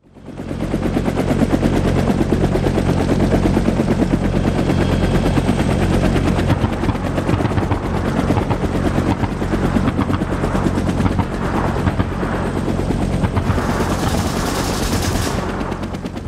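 Rapid, sustained automatic gunfire that starts suddenly, with a steady low drone underneath and a brighter hissing rush near the end.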